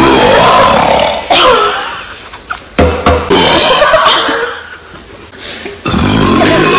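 Several long, loud human burps in a row, each starting abruptly with a wavering pitch and tailing off before the next one.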